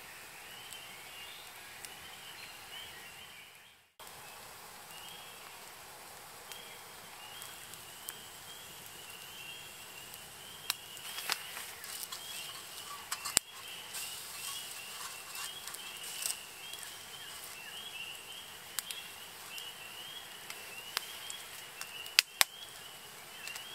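Insects chirping in a steady, continuous high chorus, broken once by a brief drop about four seconds in. Later come a few sharp metallic clicks as a fork and small metal skillets are handled on a wire grill grate over the fire.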